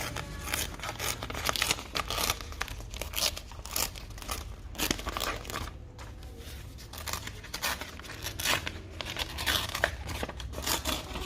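Paper pages of a book being torn and crumpled, with irregular crackling and rustling throughout.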